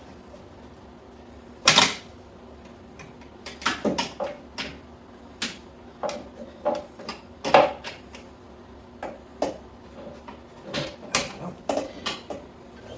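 Irregular metal clicks and clunks of hand work on a motorcycle's rear suspension, about two dozen sharp taps at uneven spacing, the loudest about two seconds in and again near the middle.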